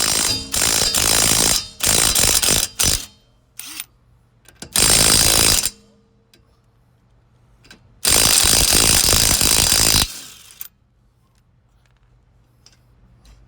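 Cordless impact wrench with a 21mm socket hammering on wheel lug nuts in bursts: four short runs in the first three seconds, another about five seconds in, and a longer run of about two seconds near eight seconds in. The nuts are a little tighter than they should be.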